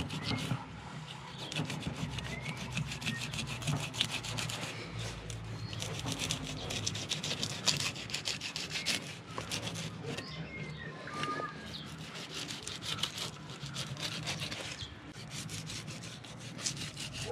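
A knife blade cutting through the skin along the back of a longfin tuna, a rapid scratchy rasping made of many small clicks, with short breaks as the cut is moved along.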